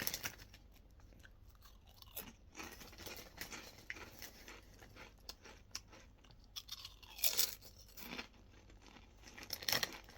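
Ridged cheese and onion crisps being crunched and chewed close to the microphone, in irregular crunches, with louder bites about seven seconds in and near the end.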